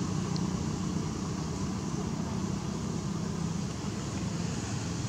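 A steady low engine hum over a constant hiss, dropping a little in pitch near the end.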